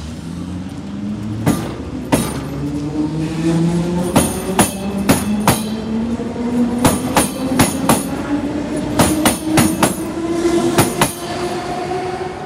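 Berlin S-Bahn class 485 electric train pulling out and accelerating past: its traction motors whine in several tones that rise slowly in pitch as it gathers speed. The wheels click sharply over rail joints and points, a dozen or so strikes, often in pairs.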